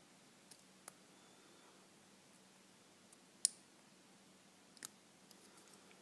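Jack Hammer 50mm brass padlock being single-pin picked: a few faint, sharp single clicks of its pin tumblers setting under tension, the sharpest about three and a half seconds in.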